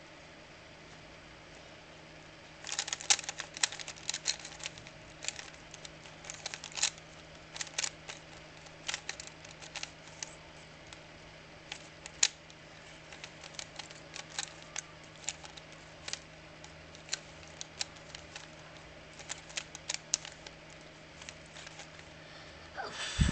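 3x3 Rubik's Cube being turned by hand: plastic layers clicking as they rotate, a quick run of turns about three seconds in, then scattered single turns.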